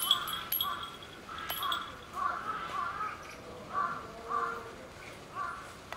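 A bird cawing over and over, about ten short harsh calls at uneven intervals, with a few thin high chirps in the first couple of seconds.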